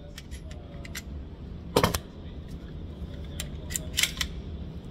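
Gunshots in an indoor firing range: a quick loud cluster a little under two seconds in, then a few more sharp cracks in fast succession around three and a half to four seconds in, over a steady low hum.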